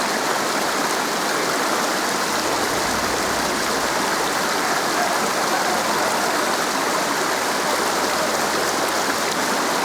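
Waterfall's rushing water, a loud, steady hiss that doesn't change.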